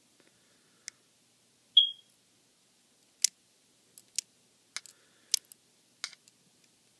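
Small sharp clicks and ticks of a tool working at the ribbon-cable connector latch and parts inside an iPhone 3GS, about a dozen spread irregularly, with one brief high chirp a little under two seconds in as the loudest sound.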